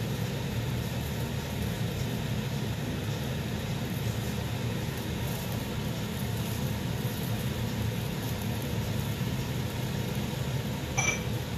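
Steady low rumble of a gas stove burner flame running on high under an upturned pan. A short high chirp sounds near the end.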